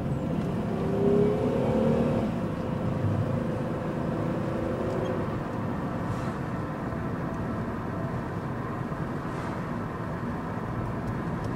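Steady engine and road noise heard from inside a moving car, with a brief rising tone about a second in.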